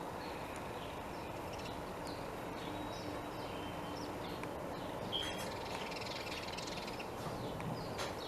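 Small birds chirping over and over in short, falling notes above a steady background hiss, with one sharp click about five seconds in.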